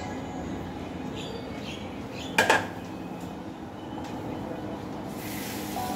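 A single sharp clatter about two and a half seconds in, a ceramic plate set down on a tiled kitchen counter, over a steady background hiss.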